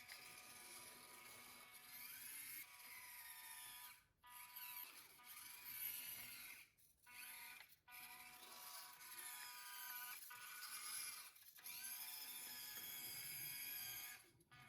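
Small N20 DC gearmotor in a miniature RC truck, whining as it drives. Its pitch rises and falls with the throttle, and it cuts out briefly several times.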